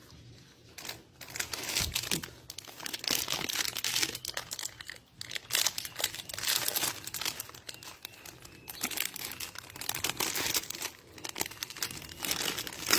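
Plastic cracker packaging crinkling as it is handled, in repeated bursts starting about a second in.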